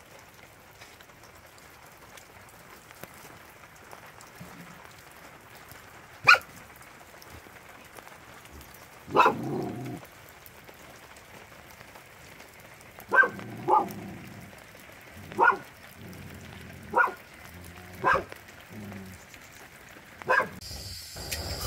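A dog barking, about eight single sharp barks at irregular gaps, starting about six seconds in, over the steady hiss of rain.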